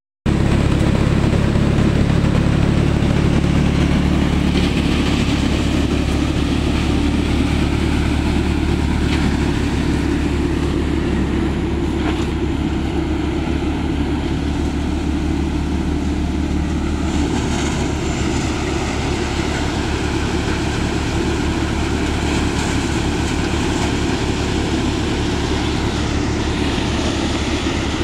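John Deere 5045D tractor's three-cylinder diesel engine running steadily under load, driving an Ajmer thresher threshing paddy, with the threshing drum's whir over the engine drone.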